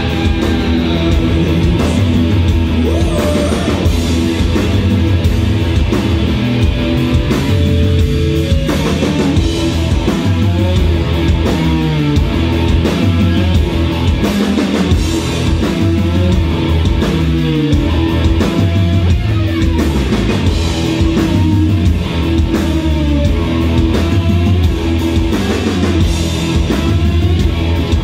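Rock band playing live: electric guitars, keyboard and drum kit, loud and continuous.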